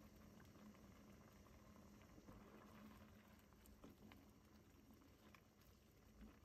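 Very faint simmering of a chickpea curry in a stainless pan, with a few soft knocks as a wooden spoon stirs it, over a steady low hum.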